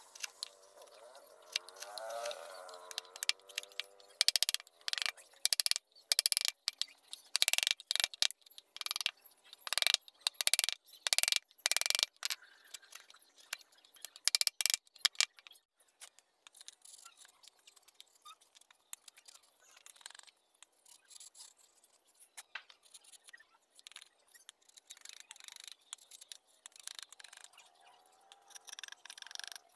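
Woodcarving chisel struck into wood with a mallet: a run of sharp, irregular taps, loudest between about 4 and 16 seconds in, then fainter, sparser cuts and scraping as the chisel pares the carving.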